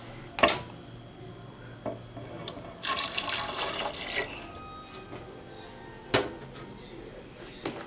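Milk poured from a cup into a plastic blender jar, a rushing splash lasting about a second and a half. It falls between two sharp knocks: one early on and one about six seconds in.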